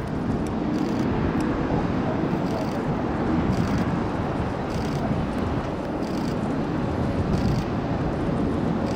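Steady, low rumble of the jet engines of the Blue Impulse's six Kawasaki T-4 jets flying in formation high overhead, heard from the ground.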